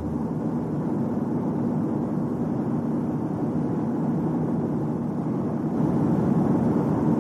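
Steady vehicle running noise, a dense low rumble that gets louder about six seconds in.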